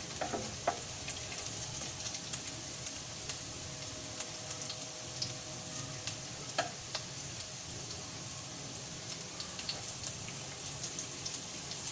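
Chopped garlic sizzling steadily in hot oil in a kawali as it is sautéed and left to brown slightly, with scattered fine crackles and a couple of light clicks.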